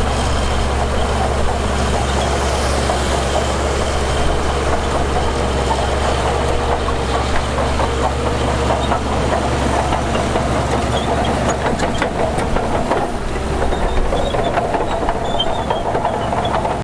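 Heavy diesel earthmoving machinery running steadily, with some faint clanks in the second half.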